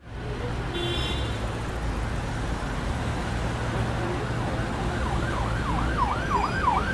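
City street traffic with a steady low rumble. An emergency-vehicle siren starts about five seconds in, yelping up and down quickly, about three sweeps a second.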